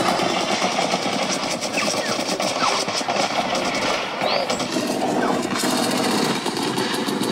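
Protest crowd noise: a dense, fast clatter with a few short rising whistles through it.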